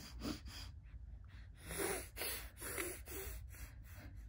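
A baby making a string of short, breathy sniffs through her nose. The strongest come about two seconds in.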